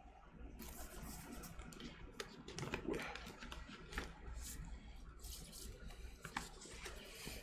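Rustling and crinkling of a large printed paper record insert being handled and turned over, with scattered small clicks and taps. It starts about half a second in and runs on unevenly.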